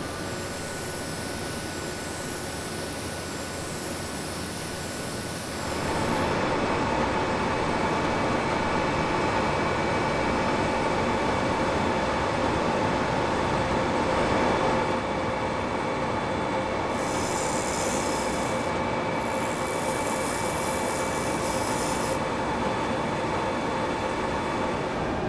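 Steady industrial workshop machinery noise: a continuous hiss and hum with a few steady whining tones, stepping up in loudness about six seconds in.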